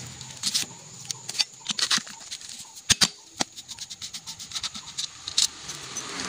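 Metal clicks and taps of a long screwdriver working the screws around a Honda CG125 crankcase, irregular throughout, with two sharp knocks about three seconds in and another shortly after.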